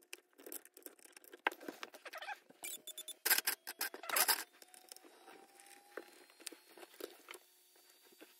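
Quick small clicks, taps and scrapes of hands handling a 1/8-scale RC buggy's wheels and chassis on a workbench. The two loudest are short scrapes a little before and a little after the middle.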